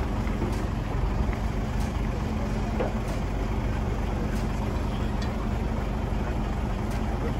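Large truck engine idling steadily, a low continuous hum.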